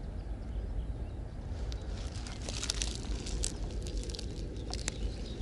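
Steady low outdoor background rumble, with a run of light crackling and clicking in the middle lasting a few seconds.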